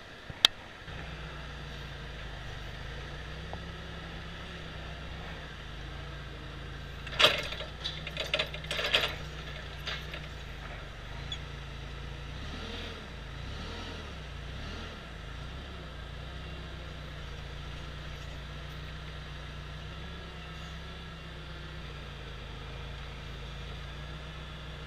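Forklift running: a sharp click, then a steady low hum sets in about a second in and holds. Around seven to nine seconds in there is a loud burst of clanks and knocks.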